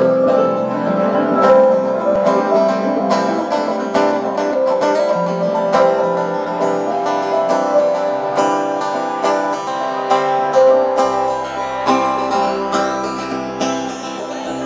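Live band playing an instrumental passage: acoustic guitar picking over drums. A low bass line comes in about eleven seconds in.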